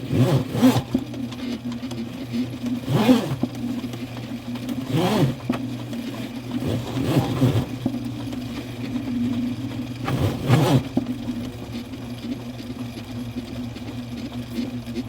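Motorized sewer (drain-cleaning) machine running with a steady motor hum, with several louder rattling surges, the loudest about three seconds and ten seconds in.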